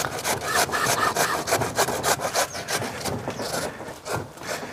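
Radish being prepared by hand for a salad: rapid rhythmic rasping strokes, several a second.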